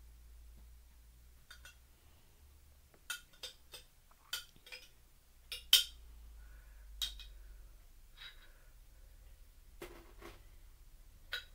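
Metal spoon clinking and scraping against a jar of Alfredo sauce as the sauce is scooped out. About a dozen sharp, irregular clinks, the loudest about halfway through.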